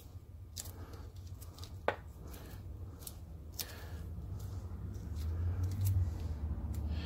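Close handling sounds of disposable-gloved hands working epoxy putty into a steel lathe cross-slide nut on its lead screw: soft rubbing and squishing with scattered small clicks, one sharper click about two seconds in. A steady low hum underneath grows louder about five seconds in.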